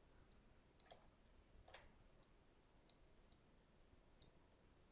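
Near silence: faint room tone with about half a dozen soft, scattered clicks of a computer mouse, the clearest a little under two seconds in.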